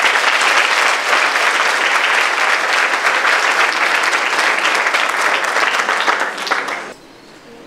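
Audience applauding, a dense continuous clapping that cuts off suddenly about seven seconds in.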